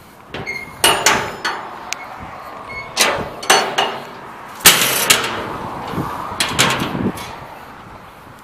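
Heavy steel lids and doors of a barbecue smoker being lifted and let down, giving a string of sharp metal clanks and bangs that ring briefly. The loudest bang comes a little past the middle.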